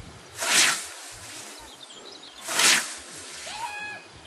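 Scythe cutting dry grass: two swishes about two seconds apart, each a short rush of noise as the blade sweeps through the stems.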